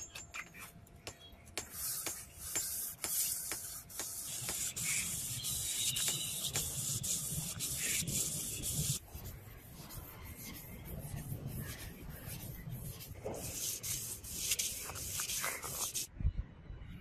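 Hand-sanding the groove of a steel sword blade: abrasive rubbing back and forth along the metal. It starts as short separate strokes, runs almost continuously for several seconds, eases off about nine seconds in, picks up again and stops abruptly near the end.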